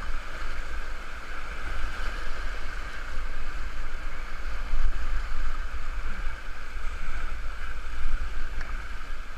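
Whitewater rapids of a river in mild flood rushing around a kayak: a steady, loud roar of water. Under it runs a low rumbling buffet on the microphone.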